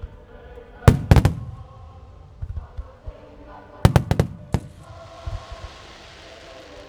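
Aerial fireworks shells bursting in two quick clusters of sharp bangs about a second and four seconds in, each with a booming echo, over music played for the show; a faint crackling hiss follows near the end.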